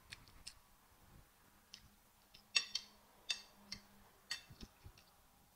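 Close-miked eating sounds: a run of about a dozen short, sharp wet clicks and smacks from chewing with the mouth closed, the loudest a little past the middle.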